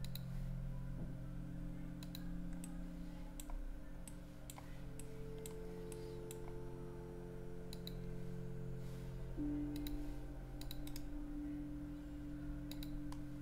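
Computer mouse clicking: single clicks and quick double clicks, scattered irregularly. Under them runs a low steady hum with a few long held tones.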